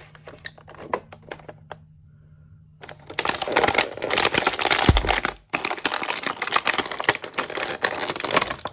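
Clear plastic packaging being cut and handled: a few scattered clicks, then several seconds of dense crinkling and crackling, with one dull thump about five seconds in.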